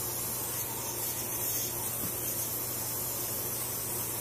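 Crisco aerosol cooking spray hissing in one long, steady spray as it coats large metal pans.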